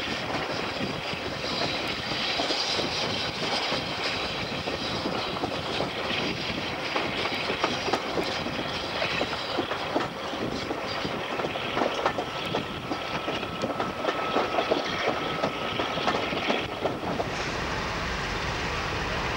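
Diesel-hauled passenger train heard from an open carriage window on a curve: wheels clicking over rail joints, with a thin wheel squeal held for a few seconds in the second half. Near the end it gives way to the steadier, lower sound of a Hymek diesel-hydraulic locomotive approaching.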